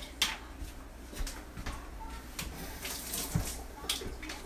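Irregular light clicks and clatter of a kitchen knife being handled at the counter.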